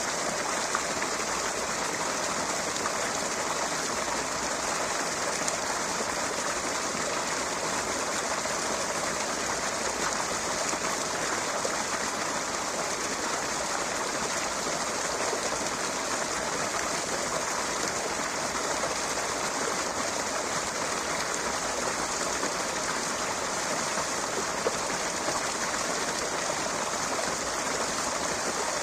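Flowing water, a steady unbroken rush with no pauses or changes.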